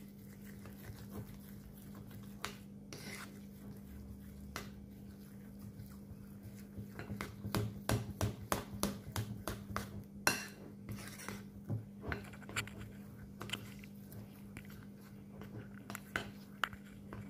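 Metal fork beating thick semolina-and-curd batter in a ceramic bowl: quick clicks and scrapes of the fork against the bowl, sparse at first and coming thick and fast from the middle on.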